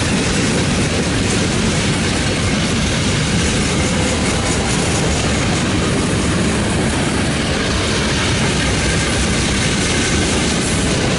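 Freight train cars (centerbeam lumber flatcars, a boxcar, a covered hopper) rolling past: a loud, steady rumble and rattle of steel wheels on the rails.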